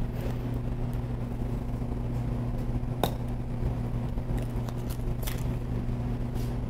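An oyster knife clicking and scraping against an oyster's shell as it is shucked: a few sharp clicks, the loudest about three seconds in. Under them runs a steady low machine hum.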